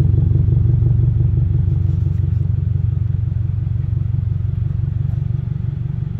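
2022 Subaru WRX's turbocharged 2.4-litre flat-four idling through an ETS Extreme axle-back exhaust: a steady, pulsing low rumble that eases slightly in loudness toward the end.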